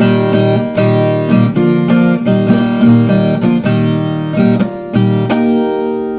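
Instrumental break of a moda caipira song: an acoustic guitar strummed in a run of chords, the last one, about five seconds in, left to ring out and fade.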